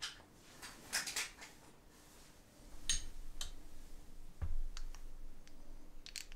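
Light metallic clicks and small knocks from the steel chuck body of a homemade tap ratchet and a small steel part being handled and fitted together, with one duller knock about halfway through.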